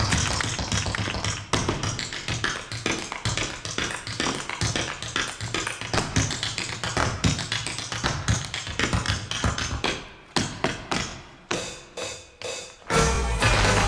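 Irish dance hard shoes of a troupe beating fast rhythms on a stage floor in unison, over music. About ten seconds in the music drops out and the shoes beat alone in short bursts with gaps between them, until the music comes back in loudly near the end.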